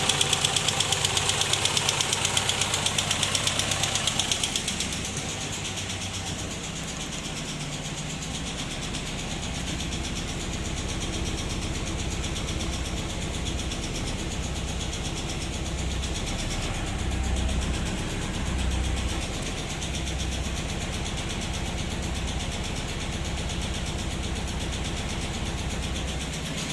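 VW Passat B3 2-litre engine idling with a steady, even knock from the top of the engine, which the owner suspects is dead or unbled hydraulic lifters. The rapid ticking is loudest for the first four or five seconds, then the sound drops to a quieter, duller idle.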